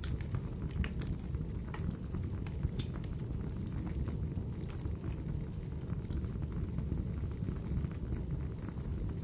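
Wood fire crackling: a steady low rumble of burning with scattered sharp pops and snaps at irregular moments.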